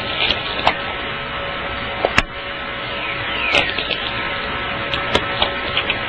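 Natural radio (VLF) recording made during a magnetic storm: dense crackling static, a 'frying' sound, with sharp pops scattered through it and a brief falling whistle about three and a half seconds in. The presenters take the crackle and pops for the sound of natural glowing balls of light, ball lightning, appearing.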